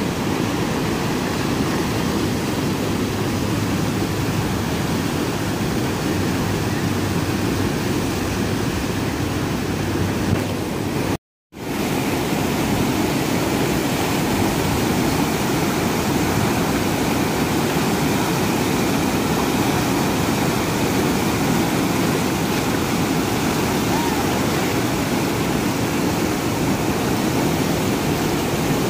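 Whitewater rapids, the river rushing steadily through class 3–4 rapids over boulders. The sound drops out for a moment about a third of the way through, then the rushing resumes.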